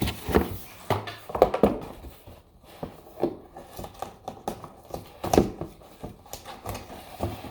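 Handling of a mail package and album packaging on a tabletop: irregular knocks, taps and light rustling as items are moved and the next package is picked up.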